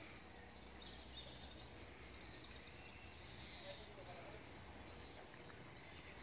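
Faint outdoor ambience: a low steady rumble with a few small bird chirps now and then.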